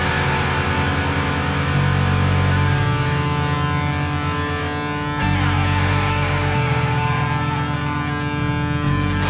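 Loud rock music led by heavy, distorted electric guitars over bass and drums.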